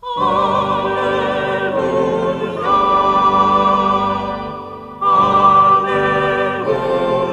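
Choral music: voices singing sustained chords with vibrato, coming in loudly at the start, changing chord about two and a half seconds in, fading briefly and coming back in loudly at about five seconds.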